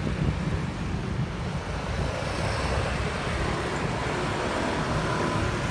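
Steady street traffic noise with a deep rumble, possibly with wind on the microphone.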